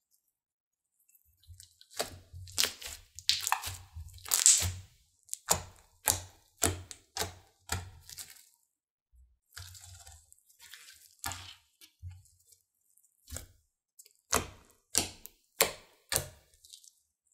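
Thick slime being stretched, poked and squeezed by hand, giving a long run of sharp wet pops and crackles, with a soft low thudding from the handling underneath.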